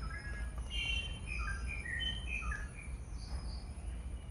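Birds chirping outdoors, many short separate calls, over a steady faint high-pitched insect drone.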